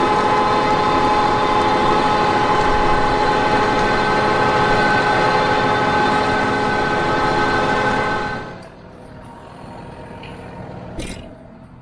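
John Deere 6215R tractor working a power-harrow combination drill: a steady mechanical drone with a high whine. About eight and a half seconds in it drops sharply to a much quieter hum, and a short click comes near the end.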